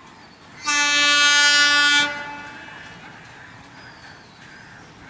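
Diesel locomotive horn giving one steady blast of a little over a second, starting under a second in and cutting off sharply.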